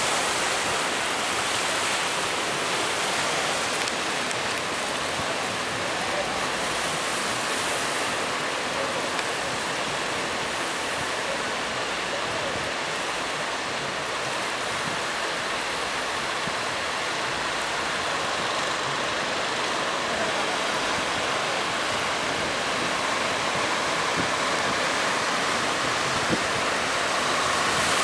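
Steady rush of breaking surf and churning water, with no distinct events.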